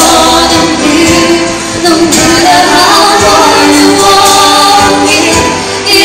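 A man and a woman singing a duet into handheld microphones, amplified and loud, with sustained sung notes throughout.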